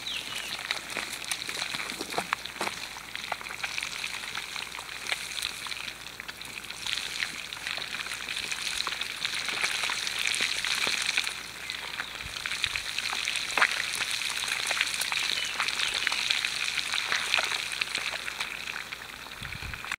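Flour-coated bluegill fillets frying in hot oil in a cast-iron skillet over a campfire: a steady sizzle and crackle of many tiny pops, swelling and easing in strength.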